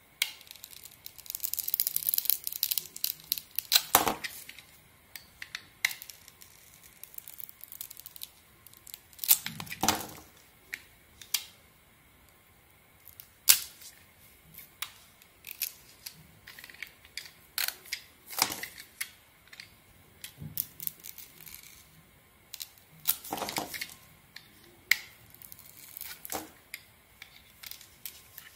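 A snap-off utility knife blade carving into a glitter-coated bar of Lux soap: irregular crisp cracks, crunches and scrapes as the blade slices and the brittle coating breaks away, with denser crackling runs at times.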